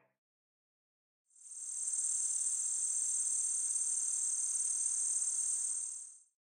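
A chorus of crickets chirping: a steady, high, shrill trill that fades in after about a second of silence and fades out near the end.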